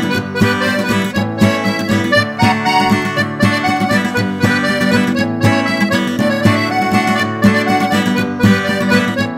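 Acoustic guitar strumming a steady rhythm under an accordion playing the melody: an instrumental intro, no singing.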